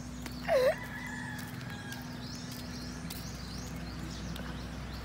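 Small birds chirping faintly in the trees, with one short, louder call about half a second in, over a steady low hum.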